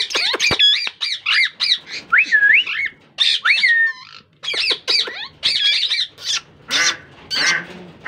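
Plum-headed parakeets squawking and chattering: a rapid string of short, high-pitched calls that swoop up and down in pitch, turning to harsher squawks near the end.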